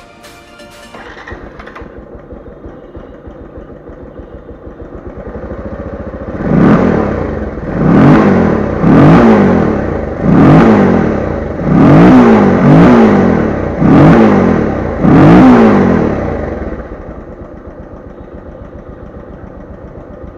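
Single-cylinder motorcycle engine running with the rubber intake funnel removed from its air filter box: it idles, is blipped sharply about eight times in quick succession, then settles back to idle. The intake note is more roaring than stock.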